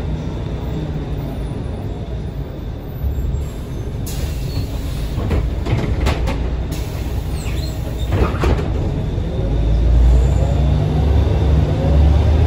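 Cabin sound of a Scania L113CRB bus on the move: its rear-mounted Scania 11-litre six-cylinder turbo CNG engine and ZF automatic gearbox running, with a few sharp rattles in the middle. About ten seconds in, the engine gets louder and its whine rises in pitch as the bus picks up speed.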